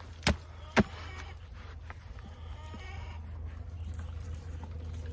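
Two sharp knocks in the first second, then a bleating farm animal calling in the background for about two seconds.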